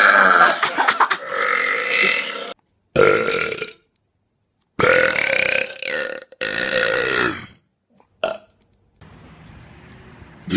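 A string of loud, drawn-out human belches, one after another, each cut off abruptly by a short silence, with a faint background hiss near the end.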